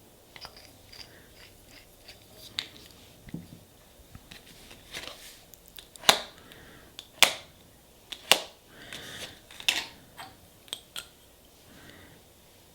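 A series of sharp clicks and short scrapes from handling nail-stamping tools, such as a scraper drawn across a metal stamping plate and small tools and bottles being set down. The clicks come irregularly, with four louder ones in the second half.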